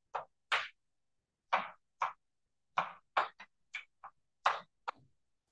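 Chalk writing on a chalkboard: a run of about a dozen short scrapes and taps with brief pauses between them.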